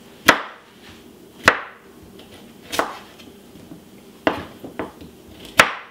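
Kitchen knife chopping a raw carrot on a cutting board: about six sharp separate knocks of the blade hitting the board, roughly one every second or so.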